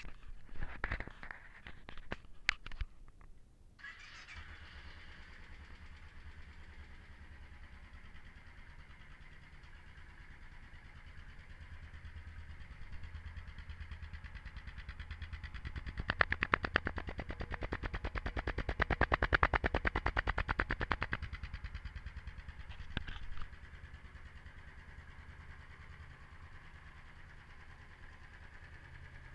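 Royal Enfield Classic 500's single-cylinder engine through its stock exhaust silencer. After a few knocks it starts about four seconds in and idles with an even, slow beat. It is revved for several seconds in the middle, given one short blip, and drops back to idle.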